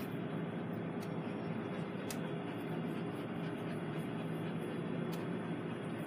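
Steady rumbling background noise, with a few faint clicks about one, two and five seconds in.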